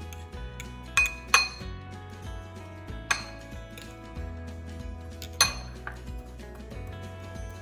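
Utensil clinking and tapping against dishes: four sharp clinks and several lighter taps, over steady background music.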